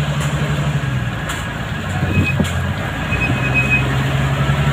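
A fishing boat's engine running steadily with a low hum. The hum eases a little about two seconds in and picks up again about a second later.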